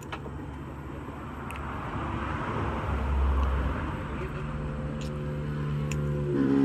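Road traffic: a passing vehicle's engine running, growing steadily louder as it approaches, with a few sharp clicks.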